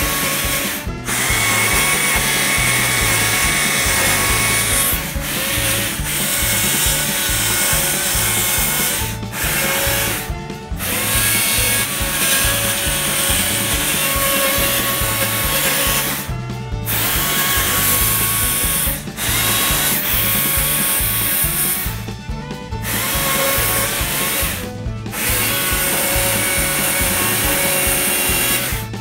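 Stihl chainsaw running and cutting into a cherry log, with a steady whine that briefly drops out every few seconds as the cut pauses. Background music with a steady beat plays under it.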